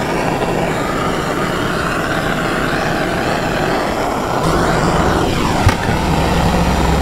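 Hand-held propane torch burning with a steady rushing hiss as its flame is played over an aluminium engine case. About halfway through, a low steady hum joins it.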